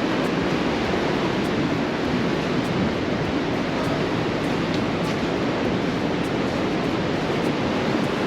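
Steady wash of ocean surf, an even rushing noise with no single wave breaking out from it.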